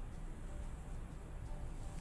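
Low steady rumble with faint background music coming in about one and a half seconds in.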